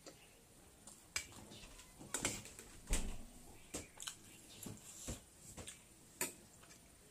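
Close-up eating sounds: wet chewing and lip-smacking over a mouthful of noodles, broken by sharp clicks of a fork and spoon against a steel plate and bowl, about half a dozen separate clicks.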